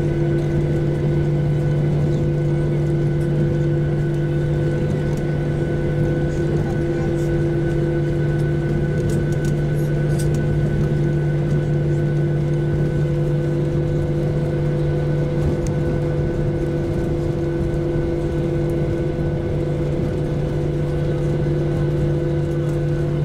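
Boeing 737-800's CFM56-7B turbofan engines at low taxi thrust, heard inside the passenger cabin. A steady drone of several held hum tones over a low rumble, with no change in level.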